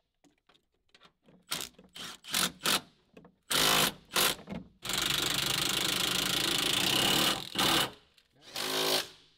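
A cordless impact wrench drives suspension bolts in a series of short bursts, then runs steadily for about two and a half seconds from about five seconds in, followed by two more short bursts.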